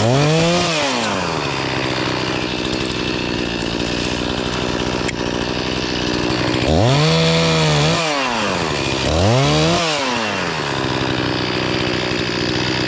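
Chainsaw idling steadily, revved up and let back down three times: once at the start, then twice more near the end.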